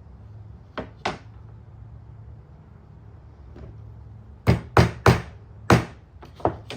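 Hammer driving a nail into wood. Two light taps come about a second in, then four hard blows in quick succession and two lighter taps near the end.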